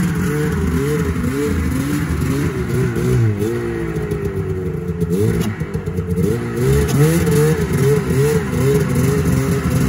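Vehicle engine running and being revved up and down repeatedly, its pitch rising and falling every second or so as the vehicle is moved.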